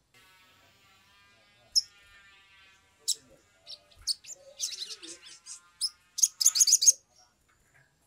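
A male olive-backed sunbird gives sharp, high chirps from about three seconds in, ending in a fast, loud run of them near the end. A faint steady buzz is heard before the chirps begin.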